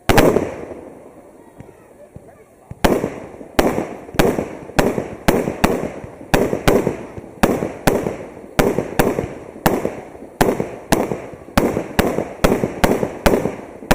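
Fireworks bursting: one loud bang at the start, then after a pause of about three seconds a rapid barrage of bangs, about two to three a second, each trailing off in an echo.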